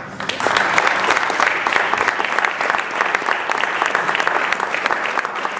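Audience applauding at the end of a song. The clapping starts suddenly and holds steady.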